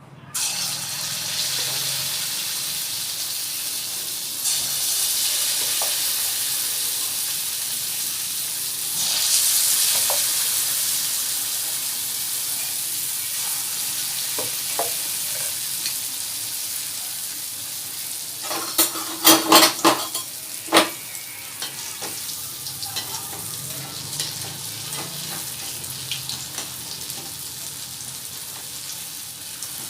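Besan-coated potato vadas sizzling in hot oil in a kadhai: the sizzle starts suddenly as they go into the oil and swells again twice in the first ten seconds. About twenty seconds in comes a quick run of knocks.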